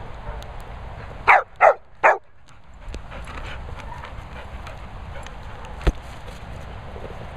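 Black Labrador-type dog barking three times in quick succession, about a second in, then a single sharp knock later on.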